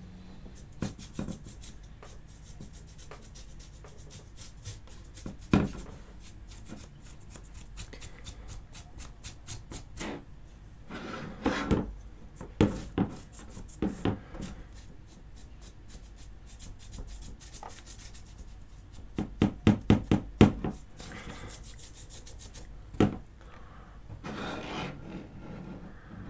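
Stiff paintbrush dry-brushing the sculpted fur of a plastic action-figure arm: bursts of quick scratchy strokes, with a few sharp knocks as the plastic arm is handled on the cutting mat.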